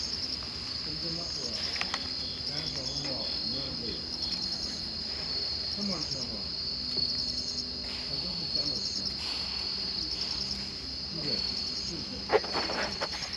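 Insects chirring in a steady, high, pulsing trill, with faint distant voices underneath and one sharp click near the end.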